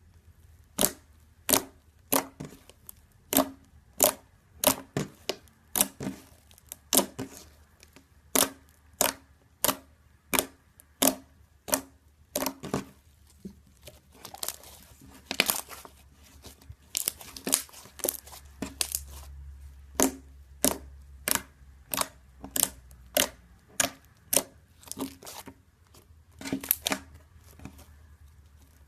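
Slime being pressed and worked by hand, giving a long series of sharp crackling pops, roughly one to two a second.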